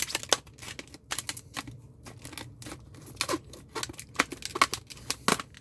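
Scissors cutting through tough, rigid clamshell plastic packaging: an irregular run of sharp snips and cracks with plastic crinkling.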